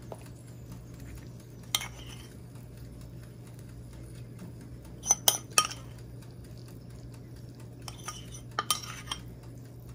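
A metal spoon clinking against dishes as scallion oil is spooned over grilled pork ribs: a single clink early, three quick clinks about halfway, and a couple more near the end, over a steady low hum.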